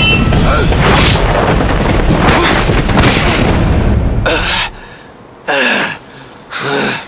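Loud dramatic film score with heavy booms under a sword-fight climax, cutting off sharply a little past halfway. Then come two short cries, each falling in pitch.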